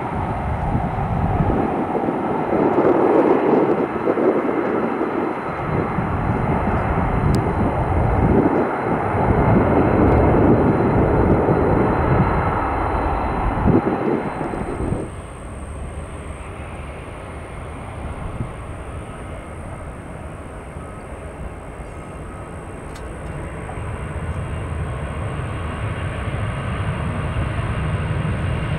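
Jet airliner engine noise, loud for the first half, then dropping suddenly about halfway through to a quieter steady rumble that slowly grows louder again near the end.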